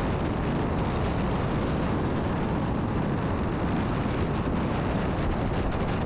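Steady rush of wind over the microphone of a camera on a paraglider in flight.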